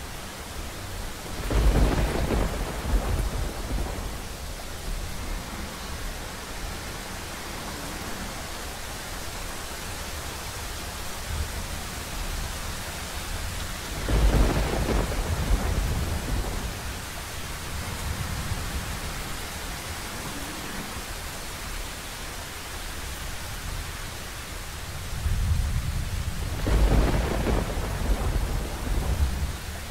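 Steady rain with three claps of thunder, one near the start, one about halfway and one near the end. Each rises suddenly and rumbles away over a few seconds.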